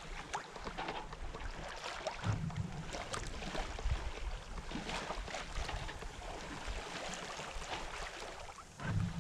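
Water rushing and splashing along the hull of a Westsail 32 sailboat under sail, in an irregular crackle. Wind gusts buffet the microphone with a low rumble about two seconds in and again near the end.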